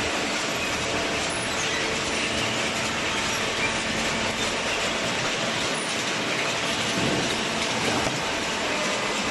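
Industrial cardboard shredder and baler running: a steady, dense mechanical noise at an even level with no letup.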